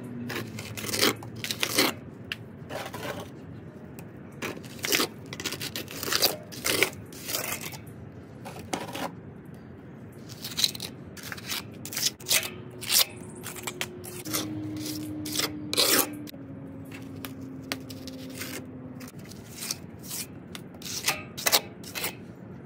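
Stucco finish coat being worked onto a cement base coat with a trowel: short scraping strokes, uneven in timing, about one a second.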